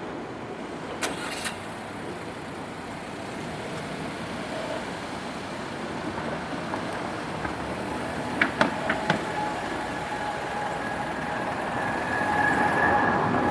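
Road traffic passing, with a few sharp knocks about a second in and again a little past the middle, and a faint steady whine that grows louder near the end.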